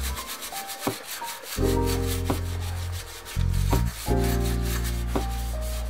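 Stiff-bristled brush scrubbing a soapy bicycle frame's rear dropout in quick, even back-and-forth strokes, heard over lofi music with a steady bass line.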